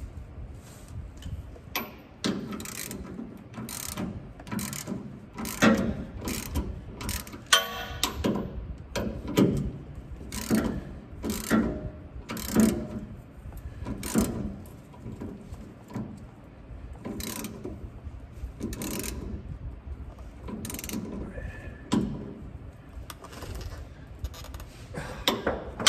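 Wrench tightening a bolt on the drive shaft mounting: a long run of irregular metallic clicks and clanks, one or two a second.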